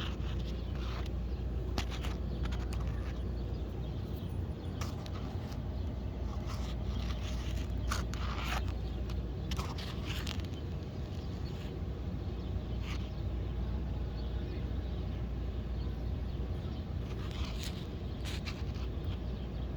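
Chevrolet 305 small-block V8 running steadily at idle, with scattered sharp ticks and clicks over its low hum; the owner suspects a failing torque converter or a cracked flexplate.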